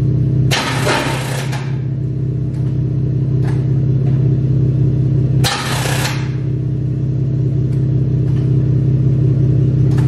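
Steady low mechanical drone from a car, with short hissing bursts about half a second in and again about five and a half seconds in.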